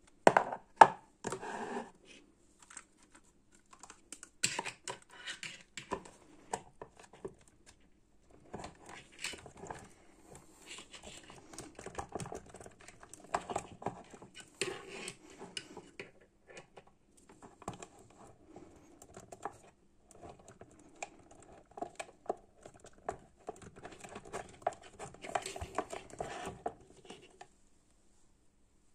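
Hard plastic parts of a small 7-inch desk fan being handled and fitted together: irregular clicks, knocks and scraping of plastic on plastic, with two sharp knocks right at the start and a quiet gap near the end.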